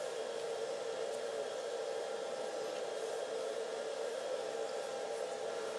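Steady hum of a small metal lathe running while a tapered hole is cut into the end of a steel spindle.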